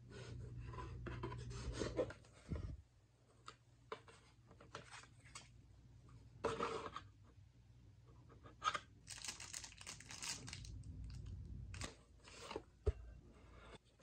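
Keyboard packaging being unboxed by hand: several sliding, rustling or tearing strokes, each about a second long, with scattered light taps and one sharp knock near the end.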